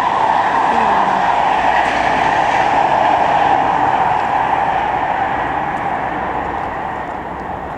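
Loud, steady rushing noise, fading slowly over the last few seconds.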